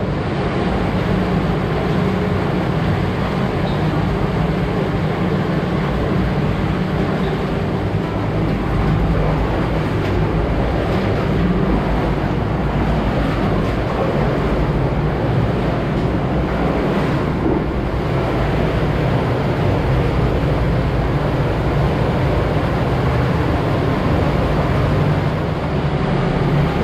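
Steady, loud rush of an underground stream in a narrow cave passage, with the splashing of wading through it.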